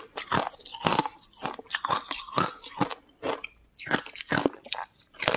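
Close-miked eating: a person biting into and chewing a brittle slab coated in green powder, a rapid irregular run of sharp crunches.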